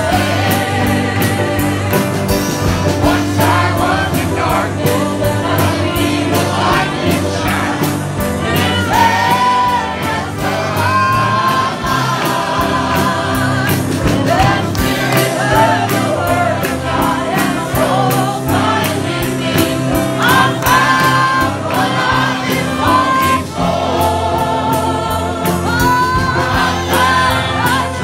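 A group of singers loudly singing a gospel song together over a steady beat with low sustained accompaniment.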